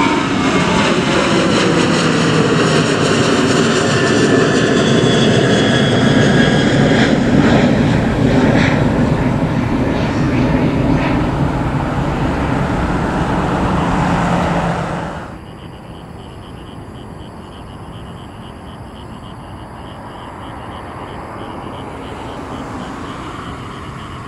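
Boeing 737-800's CFM56 jet engines at climb power passing overhead after takeoff: a loud jet roar with whining tones that fall in pitch as the airliner goes by and draws away. About fifteen seconds in the sound cuts abruptly to a much quieter, distant rumble with a faint pulsing high buzz.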